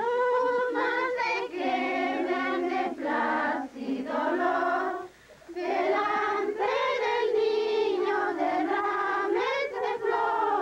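A group of voices singing together in long, held notes, a Christmas song for the nativity's Christ child, with a short pause about five seconds in.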